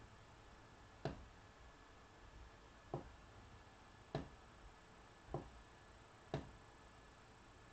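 Near silence, a quiet room tone broken by about six short, soft clicks spaced unevenly a second or two apart.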